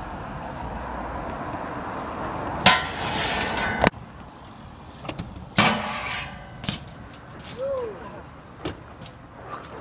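A car driving past close by with a steady rush of engine and tyres, then two loud scraping rushes, the first about a second long and the second shorter, followed by a few light clicks and knocks.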